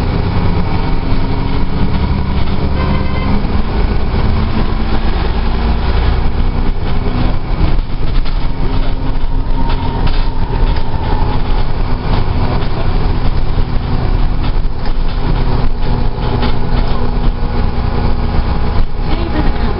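Dennis Trident double-decker bus's diesel engine and drivetrain running as the bus travels, heard inside the lower-deck saloon, a steady low drone with frequent rattles and knocks from the body and fittings.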